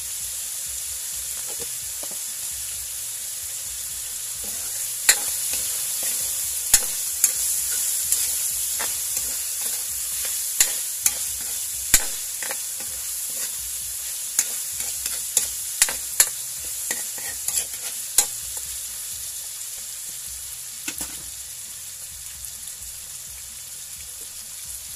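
Chicken pieces with garlic and onion sizzling steadily in hot oil in a non-stick wok. For much of the middle, a ladle stirring them clacks and scrapes sharply against the pan.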